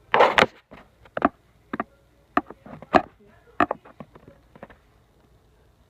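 Irregular sharp clicks and knocks, about eight in all, from a hand tool working the magnet assembly out of a dismantled laptop hard drive. The first knock is the loudest.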